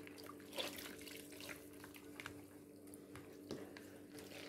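Hands rubbing and squeezing a cloth dish towel in a plastic basin of soapy water: faint, irregular sloshing and wet squelching.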